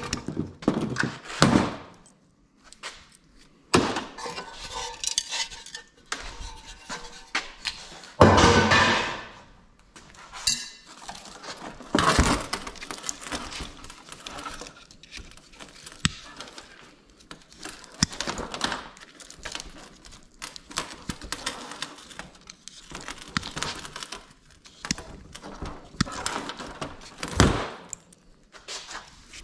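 Scrap metal parts from dismantled industrial light fixtures clinking and clanking as they are handled and set down, with a louder clatter about eight seconds in.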